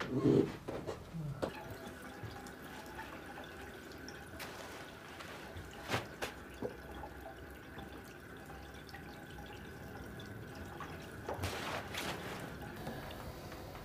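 Faint drips and soft knocks, with soft handling sounds as wet clothes and shoes are laid out on a bed, over a faint steady high tone.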